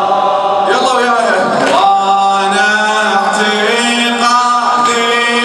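A man chanting an Arabic Muharram lament for Husayn (a latmiya) into a microphone, holding long, wavering notes.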